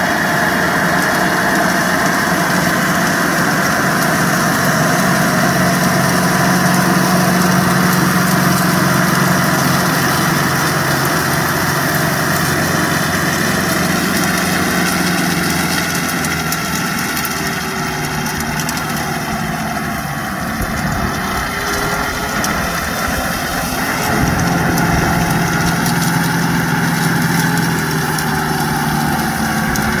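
Dongyang TX85 tractor's diesel engine running steadily under load as it pulls an SRF5000 rotary rake through loose rice straw. The loudness dips slightly a little past the middle.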